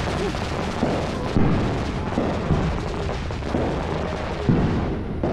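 Ground fountain firework hissing and crackling as it sprays sparks, with its hiss thinning out near the end. Several loud bangs from other fireworks go off over it, the biggest about a second and a half in and again near the end.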